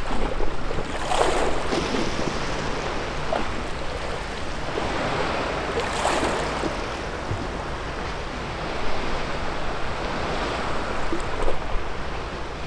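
Sea waves washing onto a pebble beach and rocks, with the clatter of rolling pebbles. The wash swells about every four to five seconds.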